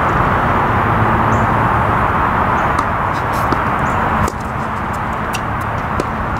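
Steady outdoor background rush with a faint low hum, dotted with light clicks and taps from tennis play on a hard court; the rush drops abruptly about four seconds in.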